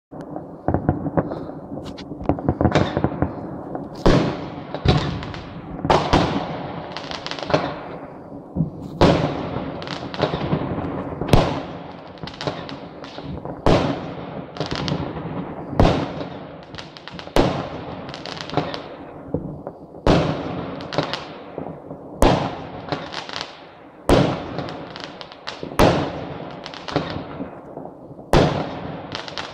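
Fireworks bursting one after another, sharp bangs about every half second to second, each followed by a fading echo.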